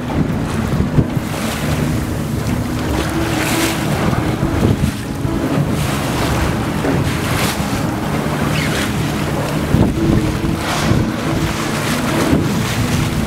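Wind buffeting the microphone over a boat's steady engine hum and choppy sea water, with a few brief whooshes every three to four seconds.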